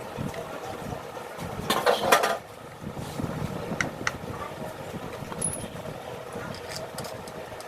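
Yamaha R15 single-cylinder engine idling steadily. A brief loud clatter sounds about two seconds in, and a couple of sharp clicks follow about two seconds later.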